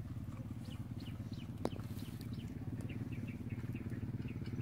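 Outdoor ambience: a steady low rumbling noise with many short, high, falling chirps scattered through it, and one sharp click about one and a half seconds in.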